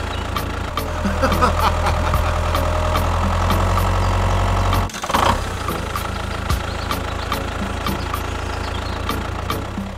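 Tractor engine running steadily. It cuts off abruptly about five seconds in, with a short clatter, and then runs on more quietly.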